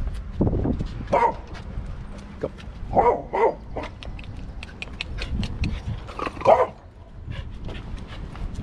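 Australian cattle dog giving a few short yelps: one about a second in, two close together around three seconds, and one more about six and a half seconds in, between light clicks and a low rumble.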